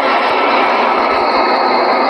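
Steady, loud rushing noise with a few faint steady tones over it, unbroken throughout.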